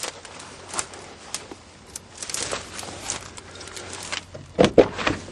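Scattered clicks and scuffs, then several loud clunks in quick succession near the end, from working the latches and door of a van that has sat unused for years.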